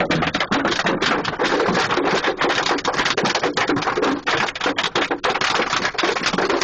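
Heavy hail pelting a vehicle, heard from inside the cab: a loud, dense, continuous clatter of impacts.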